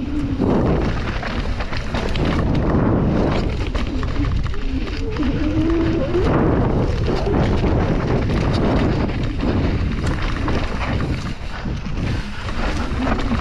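Wind buffeting the camera microphone over the constant rattle and clatter of a downhill mountain bike running over rough ground at speed.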